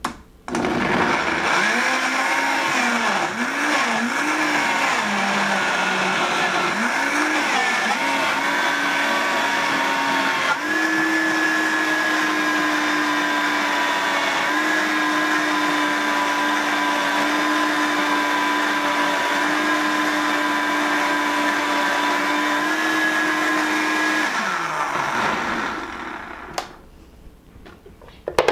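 Vitamix high-speed blender blending chopped carrot, cucumber and walnuts into a thick dressing. The motor's pitch wavers for the first ten seconds, steps up about ten seconds in to a steady whine, and winds down near the end.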